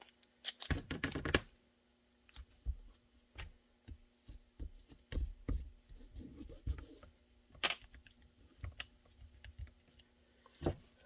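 Blue painter's tape pulled off the roll with a short rip about a second in, then smoothed and pressed down by hand over a nickel on a pistol mold, with scattered light taps and rustles.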